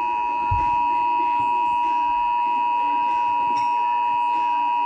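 Emergency Alert System attention signal from a television: a steady two-tone electronic tone (853 and 960 Hz sounded together), held without a break, signalling that an emergency alert, here a severe thunderstorm warning, is about to be read.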